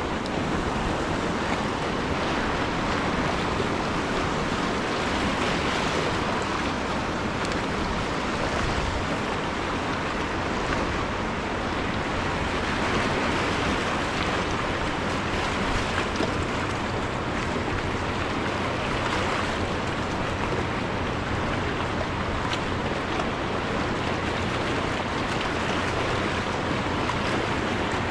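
Steady rushing of a fast-flowing river, running high and strong from a hydroelectric dam release.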